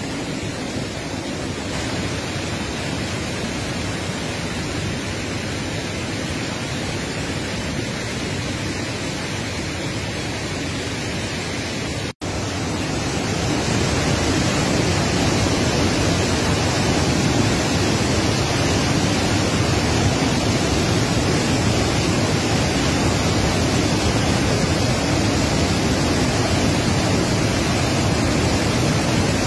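Steady roar of the Orange River in flood pouring over Augrabies Falls, a dense rushing noise of falling water and spray. It cuts out for an instant about twelve seconds in and comes back louder.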